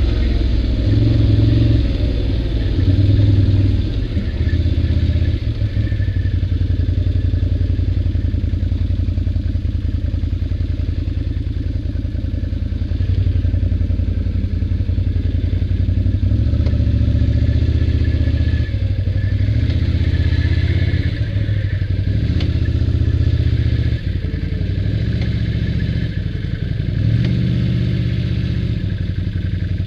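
ATV engine running under way, its note rising and falling as the throttle is worked.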